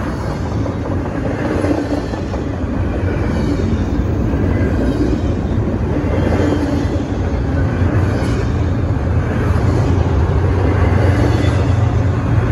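Double-stack intermodal freight train rolling past at close range: a steady rumble of wheels on the rails under the container-laden well cars. The low rumble grows stronger and slightly louder over the second half.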